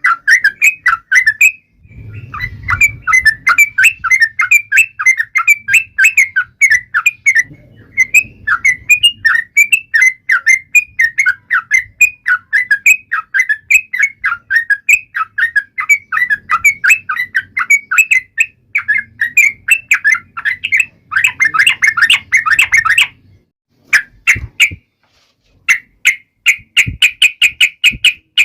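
Yellow-vented bulbul (trucukan) singing a fast, continuous run of short chirping notes, breaking off to a few scattered notes near the end before starting up again.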